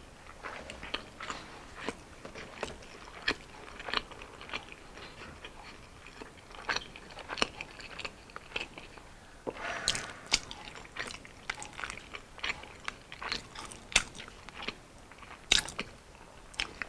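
Close-miked chewing of fried Filipino street food, wet mouth clicks and crisp crunches coming irregularly, with a denser burst of crunching about ten seconds in.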